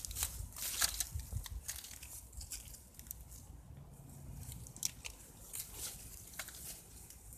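Crackling and rustling of dry reeds, grass and clothing as people move and handle one another, with scattered sharp little clicks. Underneath is a low rumble of wind on the microphone.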